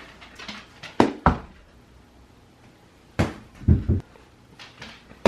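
Several sharp thumps and knocks: two about a second in, then three close together a little after three seconds.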